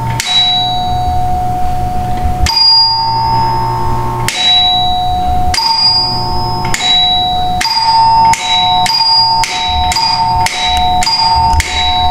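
Mechanical wired ding-dong doorbell chiming: a higher ding and a lower dong struck in turn, each ringing on briefly. The strikes come a second or two apart at first, then quicker, about two a second in the second half.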